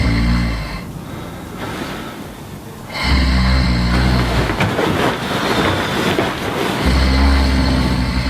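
A person snoring loudly: deep, rattling snores, each one to three seconds long, with quieter breathing between them. One snore ends about a second in, another starts about three seconds in, and a third starts near the end.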